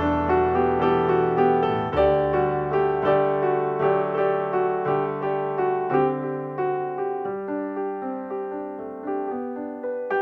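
Background piano music: an even run of struck notes over slower-changing bass notes.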